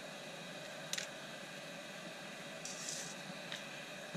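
Small handling noises on a workbench: a light click about a second in and a brief rustle near three seconds, over a steady background hiss.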